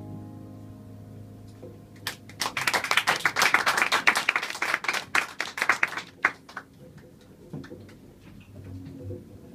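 The last note of a violin and double bass fades away, then a small audience applauds for about four seconds, starting about two seconds in and thinning to a few scattered claps.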